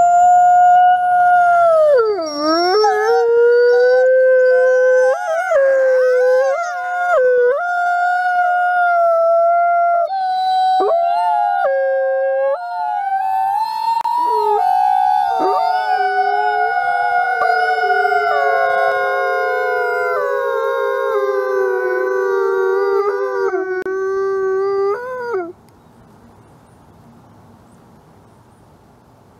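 Gray wolves howling in chorus: several long, overlapping howls at different pitches, sliding up and down, which stop abruptly near the end.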